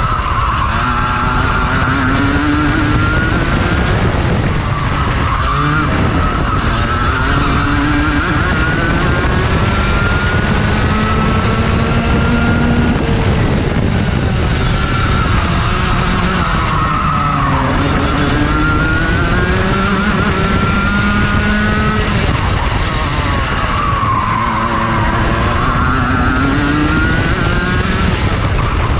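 Rotax Max Junior 125cc two-stroke kart engine at racing speed, its pitch climbing on the straights and falling back into the corners several times. Wind rushes on the onboard microphone underneath.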